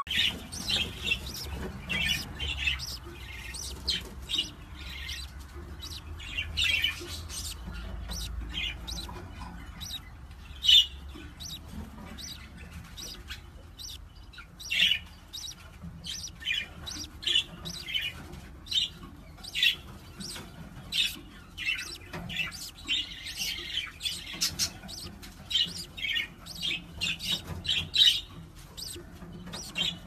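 A pair of budgerigars chattering in many short, quick chirps that keep coming throughout. A low rumble runs under them in the first half.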